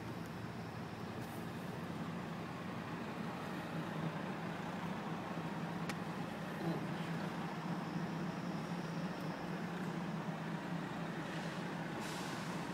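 Steady road noise inside a moving car: an even rumble of tyres and engine.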